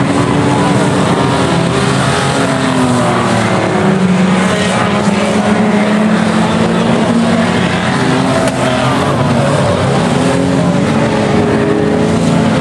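Several race cars' engines running hard and revving on the track, their pitches rising and falling as they lap and pass.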